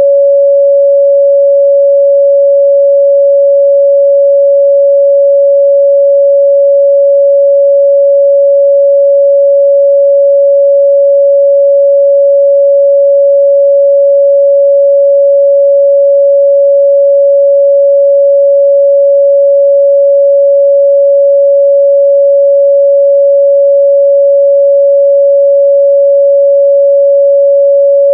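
A steady 561 Hz sine-wave test tone, one pure unwavering pitch held loud and unbroken.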